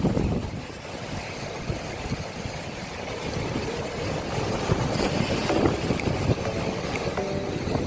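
Sea waves washing onto the shore, with wind buffeting the microphone as a gusty low rumble.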